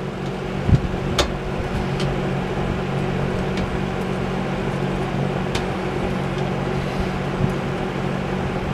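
Steady low mechanical hum with a few fixed tones, like a running fan or air conditioner, with a few light clicks about one and two seconds in and again past the middle.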